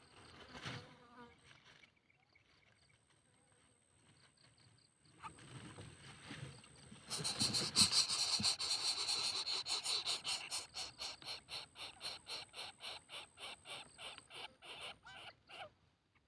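Cicada calling: a loud buzz starts about halfway in and breaks into a run of pulses, about four a second, that slow and fade away.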